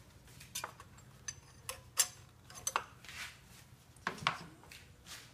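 Scattered light metallic clicks and clinks, about half a dozen in a few seconds, as metal fittings and a small bracket are handled around a fuel pressure regulator, over a faint low steady hum.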